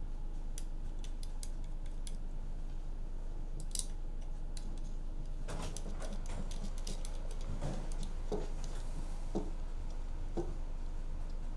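Small scattered clicks and taps of fingers turning the thumb screws and handling the plastic housing of an Atlas Copco STwrench controller, securing a wireless module in its slot. A steady low hum runs underneath.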